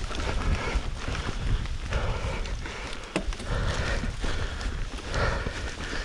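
Nicolai Geometron G1 mountain bike riding down a rough trail: tyres rumbling and the bike clattering and knocking over bumps, with wind buffeting the camera microphone.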